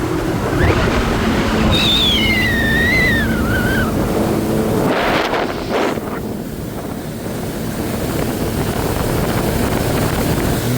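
Jet ski engine running under way, with rushing water and wind on the microphone. A high wavering tone sounds from about two to four seconds in, and a brief rush of noise comes about five seconds in.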